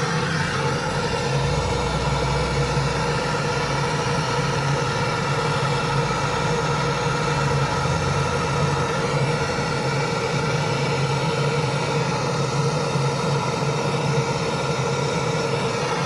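A small motor running steadily, with a low hum and a hiss above it.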